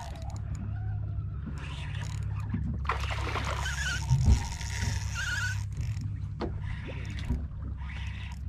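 Boat's outboard motor running steadily with a low hum. From about three seconds in, a spinning reel is cranked fast for two or three seconds, giving a whirring hiss. A single knock comes just after four seconds.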